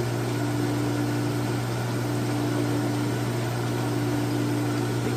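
A machine running with a steady low hum, with a fainter higher tone that fades in and out every second or two.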